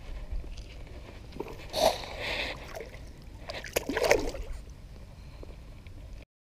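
Water splashing and sloshing twice, about two seconds apart, over a low steady rumble. The sound cuts off suddenly near the end.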